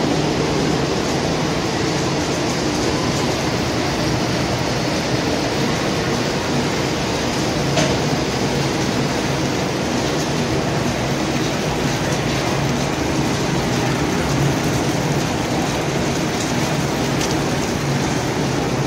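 Popcorn production line machinery running steadily, an even, dense mechanical din, with a short click about eight seconds in.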